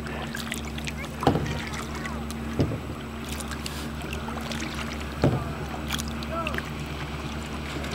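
Kayak paddle strokes: the paddle blades dip and splash into the water a few times, with sharp strokes at irregular intervals over a steady low hum.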